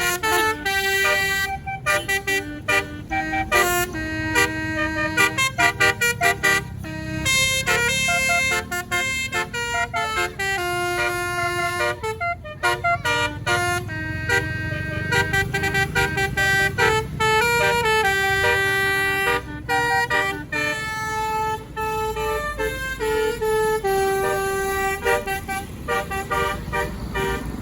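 Tour bus's basuri telolet horn playing a melody: a long run of held horn notes stepping from pitch to pitch, over a low engine rumble.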